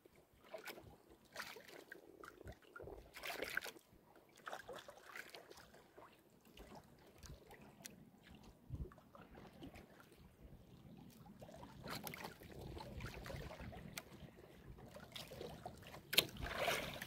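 Choppy water sloshing and splashing against the hull and bamboo outriggers of a small wooden outrigger boat, in faint irregular bursts with the loudest splash near the end.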